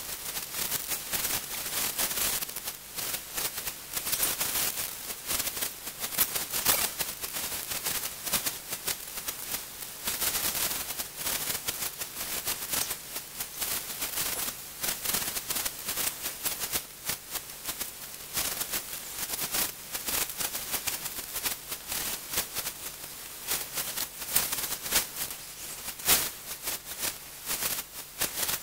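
Steady dense crackling: a rapid, irregular patter of tiny clicks over hiss, with a few sharper clicks standing out, the loudest one near the end.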